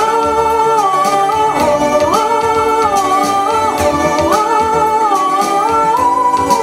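Music: a melody of long held notes moving in two-part harmony over a light beat.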